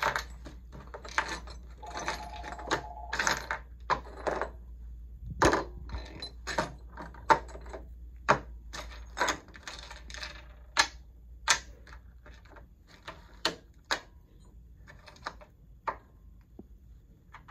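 Small steel bolts, nuts and washers clicking and clinking as they are set down one by one on a wooden tabletop: irregular sharp clicks, about one or two a second.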